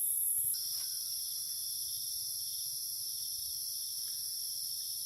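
Insects, crickets by their sound, trilling in a steady chorus; a second, lower-pitched trill joins about half a second in.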